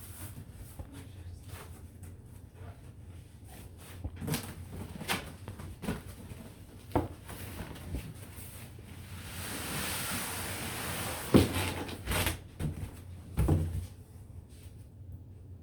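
A cardboard box being handled and opened and a packed play yard pulled out: scattered knocks and thumps, a few seconds of scraping and rustling in the middle, and the heaviest thumps near the end.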